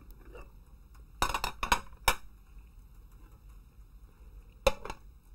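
Tableware clinking against a ceramic serving plate: a quick run of about four sharp clinks about a second in, and another pair near the end.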